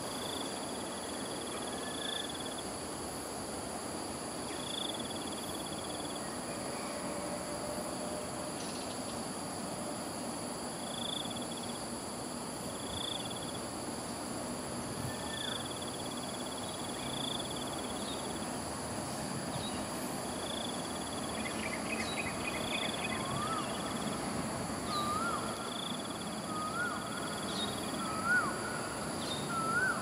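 Outdoor wildlife ambience: a steady high insect drone, with short high calls repeating every second or two. From about two-thirds of the way in, a series of short rising calls repeats, each a little higher in pitch and louder than the last.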